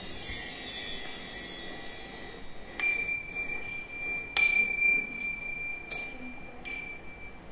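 Bar chimes (mark tree) shimmering as they are swept, fading over the first couple of seconds. Then a small brass bell is struck three times, each stroke ringing on at one clear high tone.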